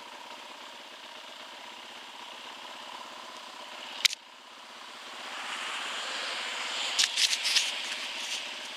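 Dirt bike engine idling steadily, then a sharp click about four seconds in after which the engine note is gone, as the bike is shut off. Then rustling and clicks close to the microphone as a gloved hand comes up to the helmet camera.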